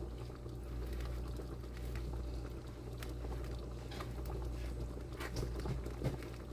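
Pot of chicken broth with dumplings boiling: scattered soft bubbling pops over a steady low hum.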